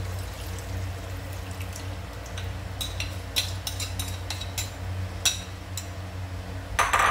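Coconut milk poured from a packet into a simmering pot of stew, with liquid splashing and irregular sharp clicks over a steady low hum. A louder knock comes near the end.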